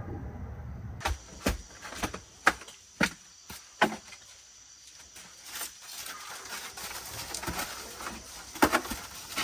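A run of sharp, irregular knocks, about two a second for some three seconds, then a few more near the end.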